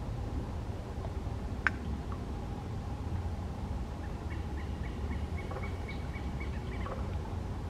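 A bird calling in the distance: a rapid series of short, high notes, about four or five a second, running for a couple of seconds from just past halfway, over a steady low rumble. One sharp click about a second and a half in.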